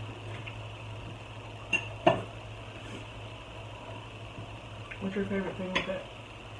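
Two sharp clinks of tableware at a meal, the second and louder one just after two seconds in, over a steady low hum. A short bit of talk follows near the end.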